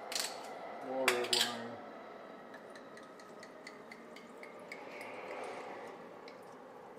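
Glass clinks and a short squeak about a second in, then red wine pouring from a bottle into a glass jug of cut fruit: a soft gurgling pour that swells about five seconds in.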